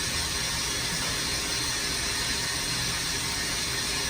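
CNC machining centre running during a probing cycle: a steady low hum under an even hiss, with no cutting or distinct clicks.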